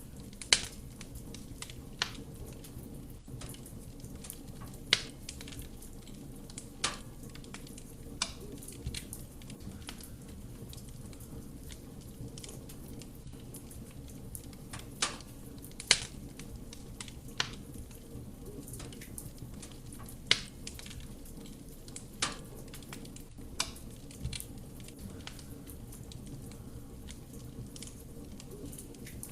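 Wood fire burning in a fireplace: a steady low rumble of flame with sharp, irregular crackles and pops from the burning logs every second or two.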